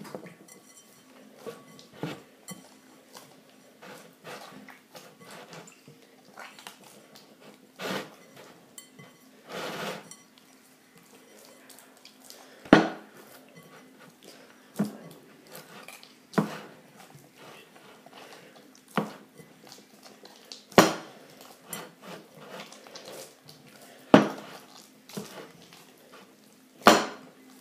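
Hands kneading damper dough in a glass mixing bowl: soft rubbing and squishing, broken now and then by sharp knocks of the glass bowl, the loudest and most frequent in the second half.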